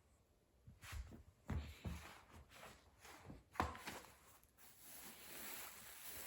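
A kitten scampering and pouncing at play: a few soft thuds and rustling of cloth, with a longer stretch of rustling near the end.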